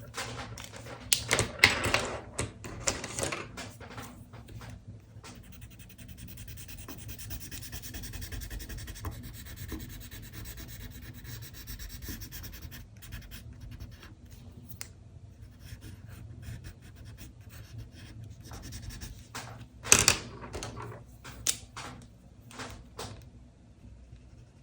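Pen scratching across paper while drawing: quick separate strokes at first, then a long stretch of steady back-and-forth rubbing like shading or colouring in. A sharp knock about 20 seconds in is followed by a few more short strokes.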